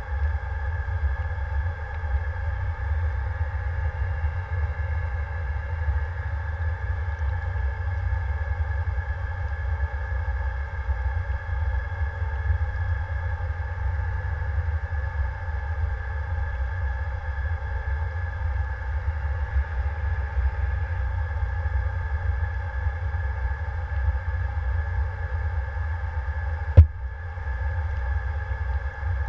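The propulsion of the Shark unmanned semi-submersible vehicle runs steadily under way, heard through its hull-mounted camera as a constant low rumble with a steady multi-tone whine above it. A single sharp knock comes near the end.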